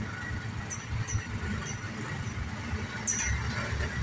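Engines and traffic rumbling low as cars pull out onto the road, with several short, high-pitched chirps over it, the loudest about three seconds in.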